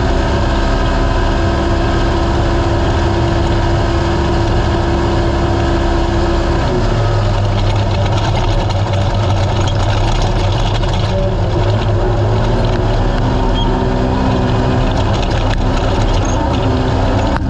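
Naturally aspirated UTV race car engine running hard under load. Its note drops about a third of the way in, gives way to a rougher, lower rumble, and then settles back into a steady pitch in the later part.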